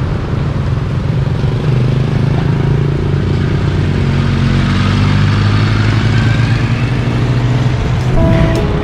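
Street traffic passing close by: motorbikes, cars and a tuk-tuk, engines running with a steady hum over tyre noise. Music comes in near the end.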